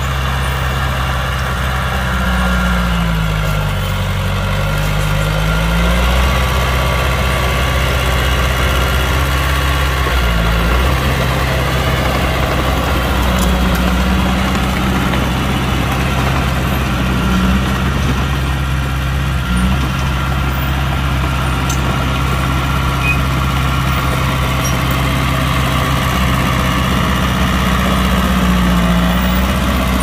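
Heavy diesel engine of earthmoving machinery running steadily. Its note dips and comes back up a few seconds in, and shifts slightly later on.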